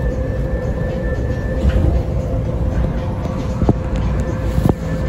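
Las Vegas Monorail train running, heard from inside the car: a steady rumble with a steady motor whine over it, and two sharp clicks about a second apart in the second half.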